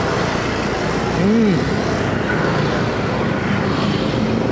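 Street traffic noise: motorcycles and cars going past in a steady din, with a short tone that rises and falls about a second and a half in.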